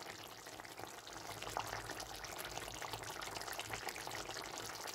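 Faint crackle and bubbling of a chicken and bottle gourd curry simmering in a metal pan, with a steady low hum underneath.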